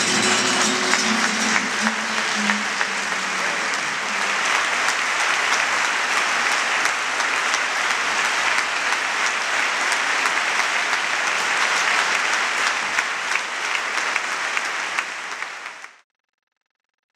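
The last notes of a flamenco guitar ring out over the first couple of seconds, and an audience's applause takes over. The applause runs steadily, then cuts off abruptly near the end.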